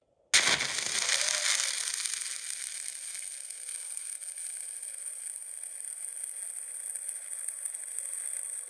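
Stick-welding arc with a 3/32-inch 6013 electrode: the arc strikes suddenly about a third of a second in, loudest at the strike, then runs as a steady sizzle while the puddle is dragged along the bead.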